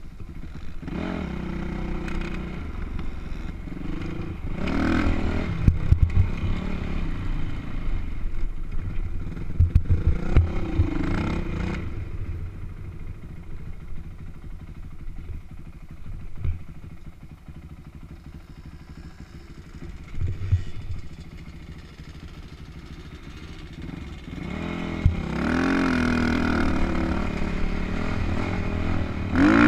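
Dirt bike engine revving up and down as it is ridden through sand, louder in the first stretch and again near the end, easing off in between. Wind rumble and knocks on the helmet-mounted microphone run under it.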